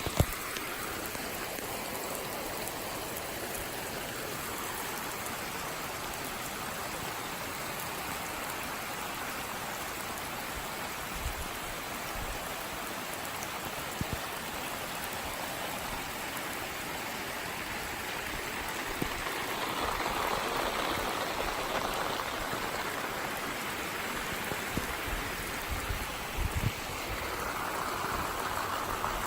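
Steady rain falling, with a few scattered drop-like clicks; it swells heavier for a few seconds about two-thirds of the way through and again near the end.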